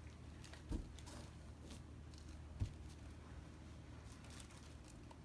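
Quiet handling noises: two soft thumps about two seconds apart and a few faint light ticks over a low steady hum.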